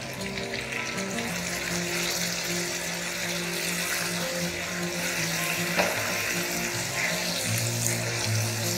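Sliced tomatoes and onions sizzling in hot oil in a kadai as they are tipped in and stirred with a wooden spatula: a steady frying hiss, with one sharp knock of the spatula on the pan about six seconds in.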